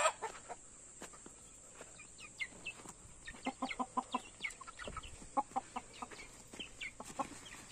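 Chickens clucking in many short calls, mixed with high, short falling peeps from chicks, starting about two seconds in.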